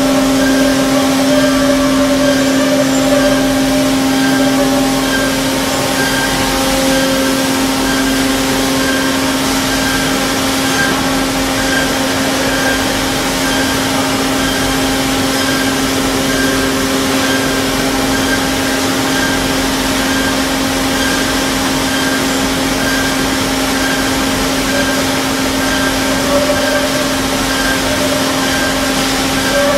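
Machinery of a biomass wood-briquette production line running steadily: a loud constant motor hum with a faint higher note pulsing at an even rate.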